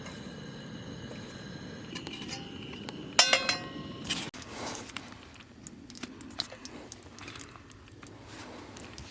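Metal cookware being handled: a loud ringing clang of a pan about three seconds in, then light clinks and knocks of utensils and dishes. A steady low rumble underneath cuts off abruptly a little after four seconds.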